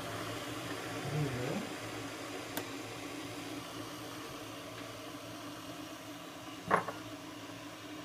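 Steady hum of an Arçelik Turkish coffee machine brewing near the end of its cycle. About a second in there is a brief low voice-like murmur, and a little under seven seconds in there is a single sharp knock.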